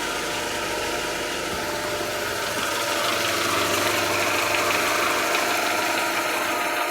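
Mitsubishi 4G63 inline-four engine running steadily, with a light knock that the owner places low down in the engine, from below.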